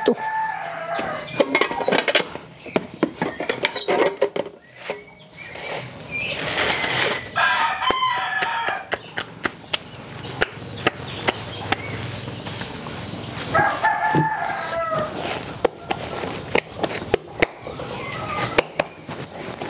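A rooster crowing three times: near the start, about seven seconds in, and about fourteen seconds in. Between and under the crows come many sharp slaps of hands patting corn masa into tortillas.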